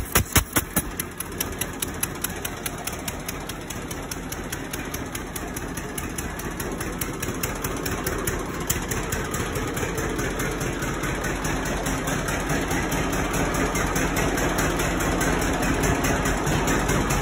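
John Deere Model D two-cylinder tractor engine running, with loud, evenly spaced exhaust pops in the first second, then running more quietly and evenly, growing slowly louder toward the end.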